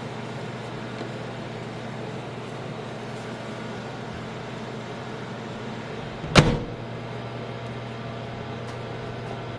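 Microwave oven running with a steady electrical hum, and a single sharp knock about six seconds in.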